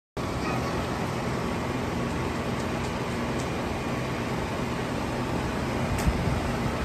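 Central air conditioner's outdoor condensing unit running: a steady rush of air from the condenser fan with a low hum underneath, and one sharp click about six seconds in.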